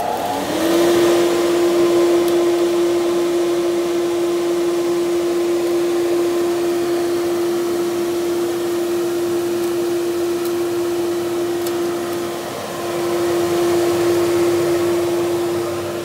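Drift Woodworking dust collector's electric motor and impeller fan spinning up and then running at full speed: a steady whine over rushing air. The whine climbs in pitch during the first second, then holds, with a brief dip about three-quarters of the way through.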